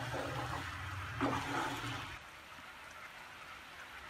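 Melted jaggery bubbling and sizzling in a nonstick pan as it is cooked down into syrup, stirred with a wooden spatula, with one louder stir about a second in. A low hum stops about halfway through, and the bubbling grows fainter after it.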